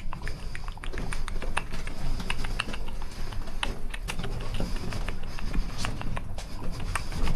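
Rapid, irregular clicking, several clicks a second, made to give the bats flying through the mine tunnel something to hear.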